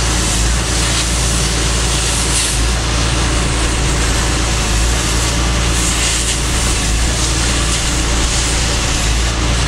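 Oxy-fuel cutting torch burning through a steel rail, a steady loud hiss from the cutting jet with no break. A steady low rumble runs underneath.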